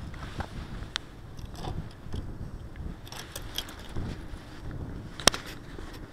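Handheld-camera walking noise: footsteps on a concrete path with small clicks and light jingling under a low handling rumble, and one sharp click about five seconds in.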